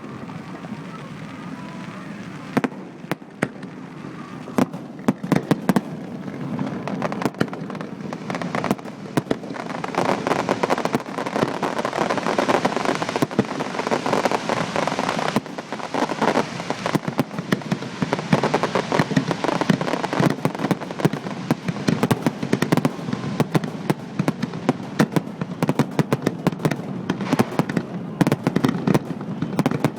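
Fireworks display at close range: many sharp bangs of shells bursting over a continuous crackle, thickening into a dense barrage after about ten seconds, with bangs coming in quick succession near the end.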